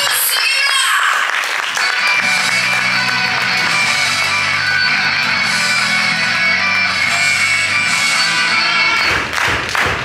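Music with guitar and a steady bass line. Near the end it gives way to a run of sharp knocks.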